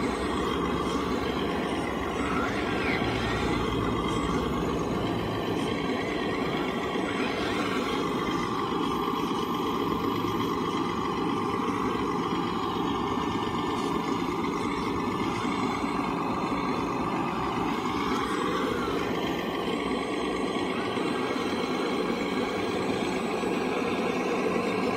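Radio-controlled hydraulic excavator running steadily, its hydraulic pump drive working as the boom and bucket dig and swing. The pitch of the running changes for a stretch in the middle.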